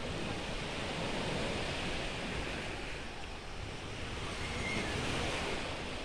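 Small sea waves washing onto a pebble beach: a steady wash that swells slightly a couple of times, with some wind on the microphone.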